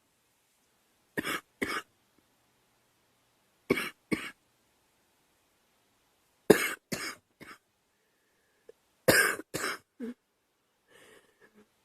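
A girl coughing in four short bouts of two or three coughs each, with pauses of a second or two between the bouts.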